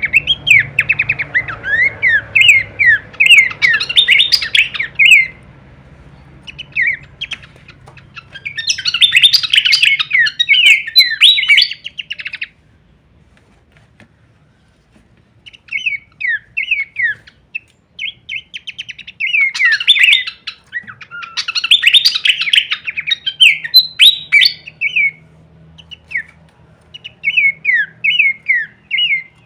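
Pelanduk semak (Horsfield's babbler) singing in bouts of rapid, sharply falling notes, breaking twice into dense chattering flurries, with a pause of about three seconds near the middle.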